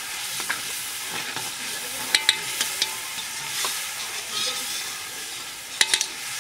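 Food sizzling in hot oil in a metal wok, stirred with a metal spatula that scrapes and clinks against the pan. The sharpest knocks come in quick clusters about two seconds in and again near the end.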